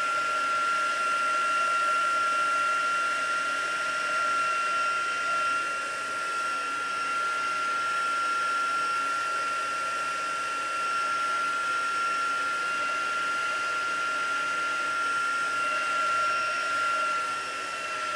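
Handheld craft heat tool blowing steadily, a rushing air sound with a constant high motor whine, as it dries ink on a card.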